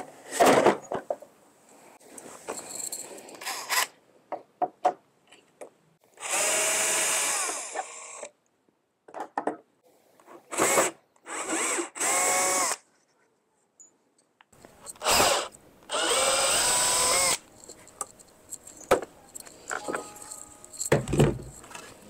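A cordless drill whirring in four short runs of one to two seconds each as it drives into the slats of a wooden pallet. Sharp wooden knocks come between the runs, the loudest about half a second in.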